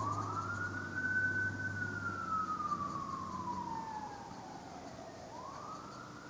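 A siren sounding a slow wail: the pitch rises over about a second, holds, slides slowly down for about four seconds, then rises again near the end. It grows fainter through the second half.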